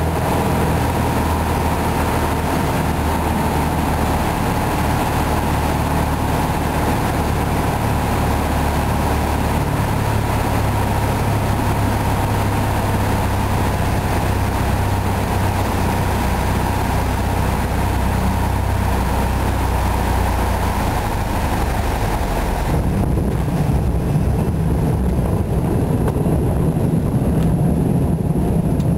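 Piper Cherokee Six's six-cylinder Lycoming engine and propeller droning steadily inside the cabin on final approach. About two-thirds of the way in the sound changes: the high hiss falls away and a low, rough rumble takes over as the plane rolls onto the gravel runway.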